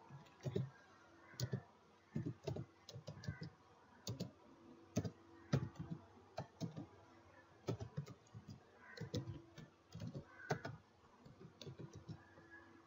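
Typing on a computer keyboard: irregular keystrokes in short runs with brief pauses between them, over a faint steady hum.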